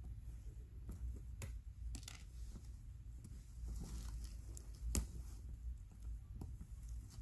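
Hands working at the quartered plastic backing ring of a stuffed bear's safety eye, breaking the pieces off: faint rustling with a few sharp clicks and snaps, the clearest about five seconds in, over a low steady hum.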